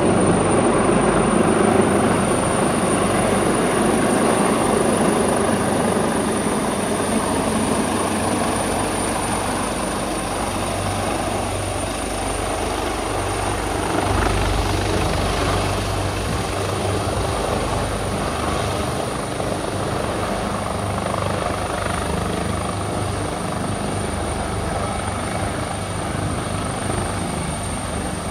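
AgustaWestland AW139 twin-turbine rescue helicopter, its rotor and engines running steadily as it comes in to land, the sound slowly growing quieter.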